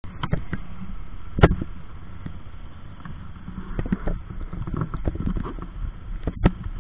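Quad bike (ATV) engines idling with a steady low rumble, overlaid by sharp knocks and clicks on the quad-mounted camera, the loudest about one and a half seconds in.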